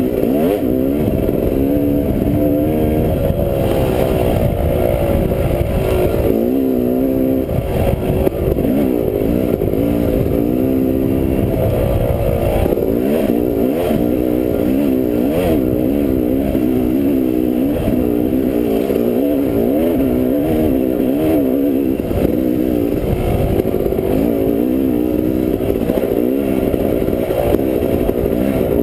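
Dirt bike engine running under way on a rough trail, its pitch rising and falling again and again with the throttle.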